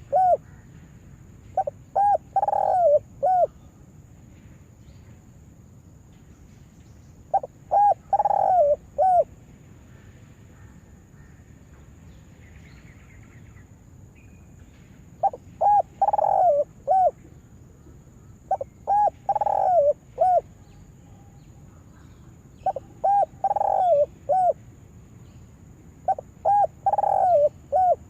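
Spotted dove cooing: a phrase of three or four coos, about two seconds long, repeated at irregular gaps, about six times in all.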